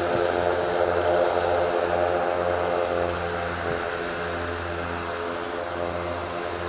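Cessna 172's piston engine and propeller running steadily at low taxi power, a continuous drone that eases slightly after about three seconds.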